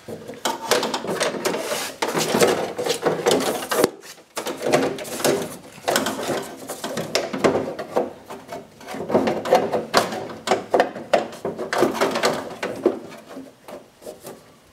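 Metal window regulator scraping, rattling and knocking against the steel inner panel of a Jeep Wrangler door as it is worked in through the lower access hole, with a short lull about four seconds in.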